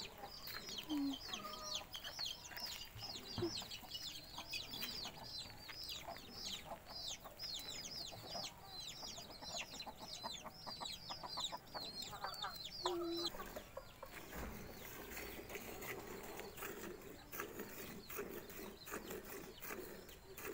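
Chickens clucking around a coop. Over them runs a long, fast series of high chirps that stops about thirteen seconds in.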